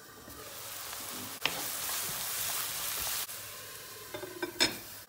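Chopped onions sizzling gently in oil in a covered frying pan on medium heat, a steady hiss that swells for a couple of seconds. A sharp click comes about one and a half seconds in, and a few light knocks near the end.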